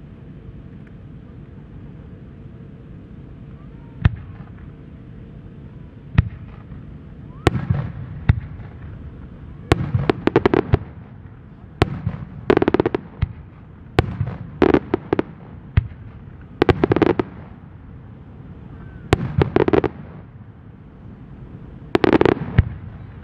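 Aerial firework shells bursting: a couple of single sharp bangs, then from about seven seconds in, clusters of rapid crackling pops every two to three seconds.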